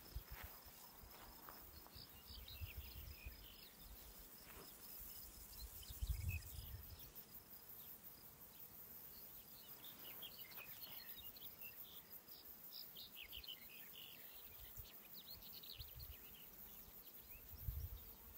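Faint outdoor ambience: insects chirring in a steady high tone, small birds chirping here and there, and a few low bumps of wind on the microphone.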